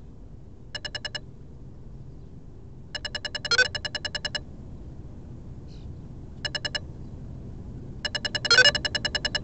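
Electronic beeper on a small drone sounding trains of rapid high beeps, about a dozen a second. There are four bursts, two short and two longer, the last running on. The second and last bursts each carry a louder chirp.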